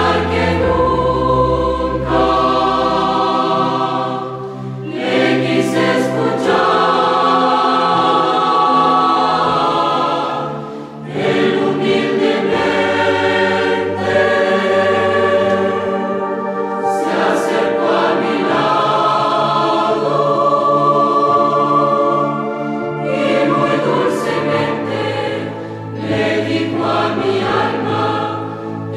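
Mixed youth church choir singing a Pentecostal hymn in parts, with keyboard accompaniment holding low sustained notes. The singing pauses briefly between phrases about 4, 11, 16 and 26 seconds in.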